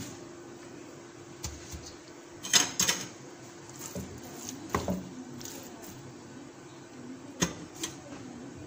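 Utensils knocking against a granite-coated nonstick frying pan as spice-coated chicken pieces are tipped in and pushed around with a wooden spatula. The knocks are scattered, with the loudest pair about two and a half seconds in, over a faint steady hum.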